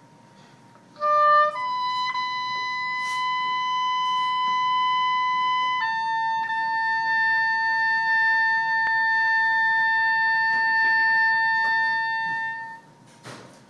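Solo reed woodwind playing slow, sustained notes: a short note about a second in, then a long high note held for about four seconds, stepping down slightly to another held for about seven seconds.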